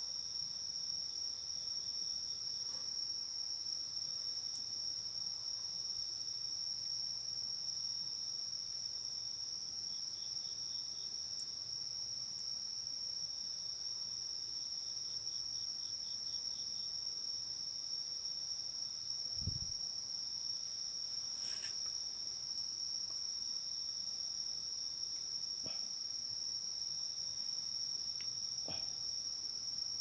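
Crickets and other night insects trilling in one steady, continuous high-pitched tone, with a second insect adding short pulsed trills around a third of the way in and again about halfway. A dull low thump about two-thirds through and a few sharp clicks near the end.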